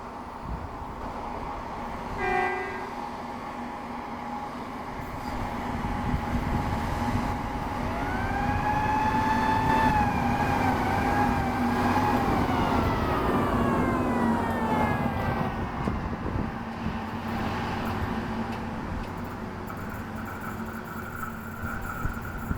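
SSP-203 ballast regulator, a rail track-maintenance machine, passing on the line with its engine and wheels growing louder to a peak mid-way. Its horn gives a short toot about two seconds in, then a long blast from about eight seconds in that wavers and slides down in pitch as the machine goes by.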